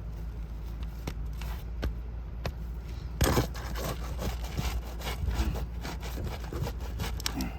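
Scraping and prying at roof shingles with a hand tool, scattered clicks and rubs with one louder scrape about three seconds in, over a steady low rumble.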